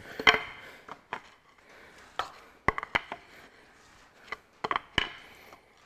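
Scattered sharp knocks and clunks from the upturned block of a Ferguson 23C diesel engine as its crankshaft is turned over with a bar, turning freely without compression now that pistons are out.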